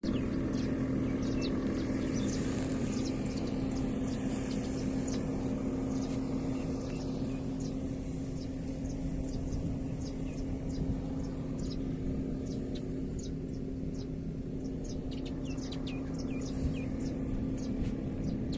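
A steady low, engine-like hum with one constant tone, and small birds chirping in short quick notes over it, most busily in the second half.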